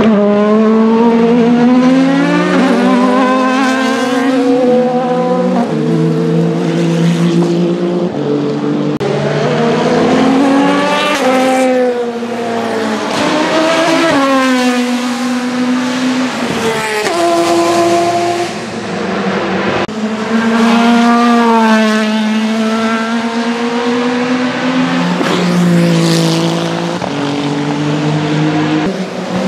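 Vanwall Vandervell 680 hypercar's Gibson GL458 4.5-litre V8 racing engine at full race pace, passing close by several times. Its note steps up and down with the gear changes, and it rises and falls as the car goes past.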